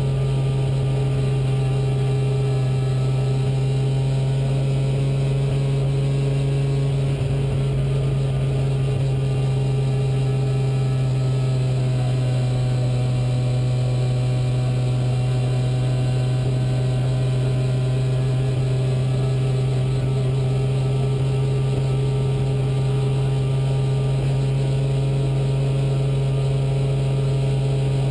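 Rally car's engine, heard from inside the cabin, running at fairly steady revs while the car drives.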